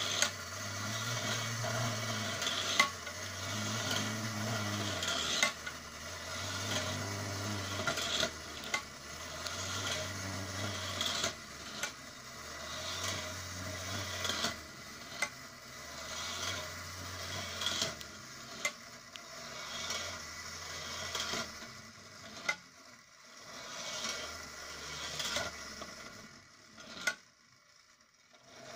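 A 1960s Soviet tinplate clockwork garage toy running: its wind-up spring motor whirs steadily with a regular pulse, and a sharp tinny clack comes about every two and a half seconds as the ramp mechanism lifts and releases a small car. The running falls silent shortly before the end.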